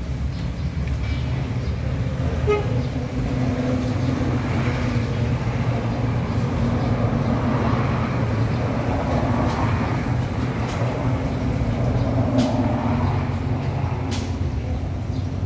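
A motor running steadily with a low hum, its sound swelling slightly twice through the middle, and a few faint clicks near the end.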